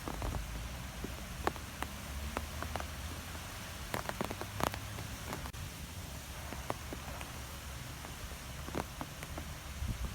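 Wind blowing through trees: a steady hiss with a low rumble of wind on the microphone, and scattered light ticks and taps throughout, a cluster of them about four seconds in.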